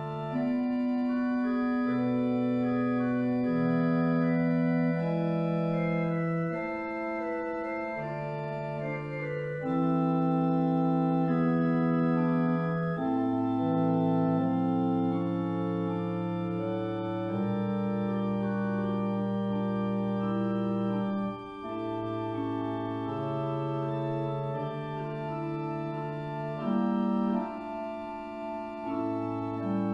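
Organ playing slow, sustained chords, each held for a second or more before moving to the next.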